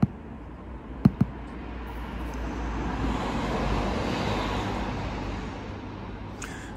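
Noise of a passing vehicle that swells to a peak midway and fades away, with two sharp clicks about a second in.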